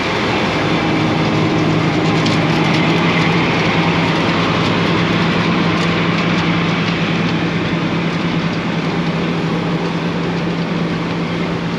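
Steady, loud machinery noise of a tracked mobile rock crusher running while an excavator loads it, with a constant low hum, heard from a vehicle driving past.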